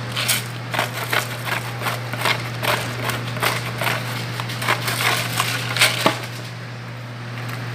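Seasoning being added from a small container over a steel bowl of mashed potatoes: a run of irregular sharp clicks and rattles, two or three a second, that stops about six seconds in. A steady low hum sits underneath.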